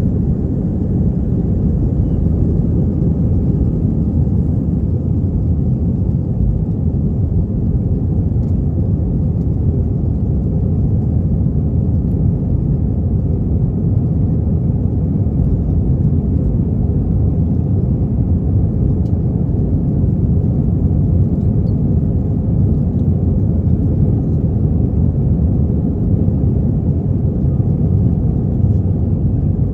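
Airbus A320 heard from inside the passenger cabin: a steady low rumble of engines and airflow, with no change in pitch or level.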